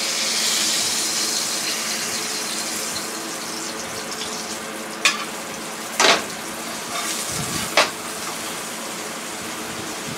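Porgy fillets frying in oil in a skillet: a steady sizzle, brightest in the first couple of seconds as the fish is turned. Three sharp knocks of the spatula against the pan come around the middle.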